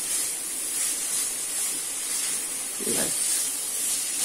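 Chopped vegetables (onion, carrot, capsicum, beans) sizzling in hot oil in a kadhai while they are stirred with a wooden spatula: a steady frying hiss as they sauté.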